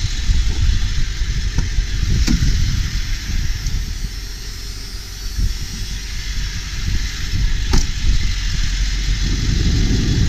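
A 1999 Ford Super Duty box truck's 7.3L PowerStroke turbo-diesel V8 idling steadily, with a deep rumble. Two short clicks fall about two seconds in and near the eight-second mark.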